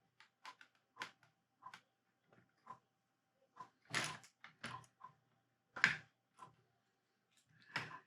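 Plastic Lego bricks clicking as they are handled and pressed together: a string of separate light clicks, the loudest about four and six seconds in.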